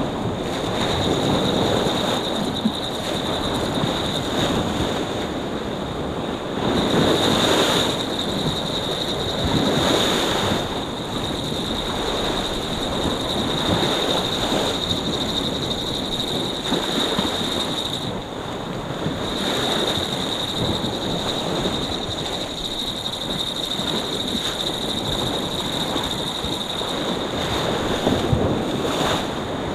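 Choppy sea surging and washing against a rocky shore, with wind buffeting the microphone; the surf swells louder about seven and ten seconds in. A faint steady high tone runs underneath.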